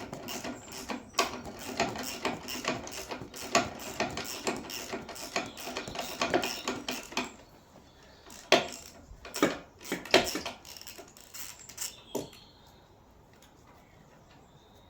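Socket ratchet clicking rapidly as a brake caliper bolt is wound out, then a few separate sharp metal clinks.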